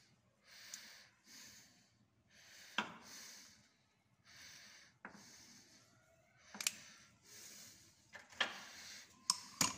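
Faint, scattered metallic clicks and taps of hand tools working on a rickshaw engine's exposed clutch assembly, about six in all, with a soft hiss between them.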